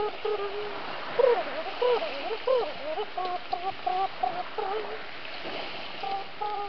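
A man's voice imitating a trumpet: a nasal, buzzing melody of short held notes, with a run of bending, wavering notes in the middle.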